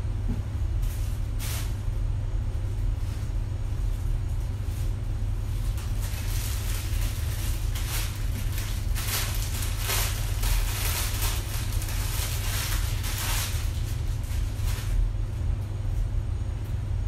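Fabric and plastic packaging rustling in many short strokes as garments are unfolded and shaken out, thickest in the middle stretch, over a steady low hum.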